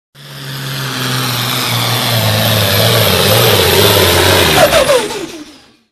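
Pulling tractor's diesel engine running loud and hard down the track under full load, its pitch shifting slightly as it goes, with a short falling glide near the end before the sound fades out quickly.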